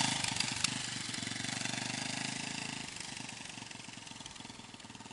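A small motorcycle's engine running as the bike rides away, growing steadily fainter with distance. Its low note drops out about three seconds in, and the sound fades toward near silence.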